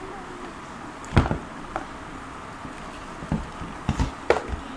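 Handling knocks and clicks from a small plastic portable air compressor and its hose fittings being turned over and set down, not running. There is a handful of sharp taps, the loudest about a second in.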